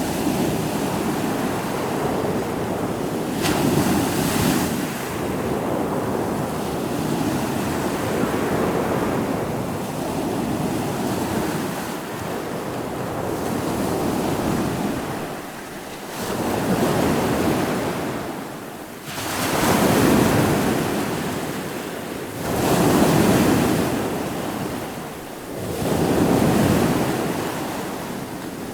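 Ocean waves breaking and washing in, swelling and falling every few seconds, with wind on the microphone.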